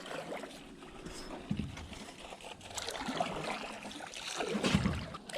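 Water trickling and splashing around a jon boat as it moves across the lake, with irregular soft knocks and swells, the loudest near the end.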